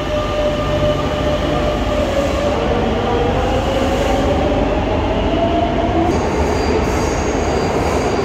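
Madrid Metro electric train running along the platform: a loud, steady rumble of wheels and motors with a motor whine that dips and then rises in pitch as the train gathers speed. About six seconds in, the sound changes and a thin, high wheel squeal comes in over the rumble.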